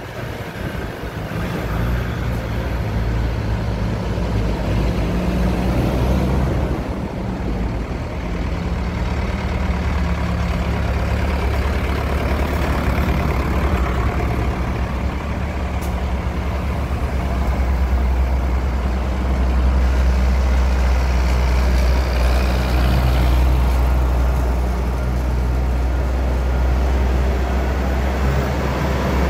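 Tractors and 4x4s driving past one after another, their engines running steadily with a deep low note that grows loudest as a tractor comes by in the second half.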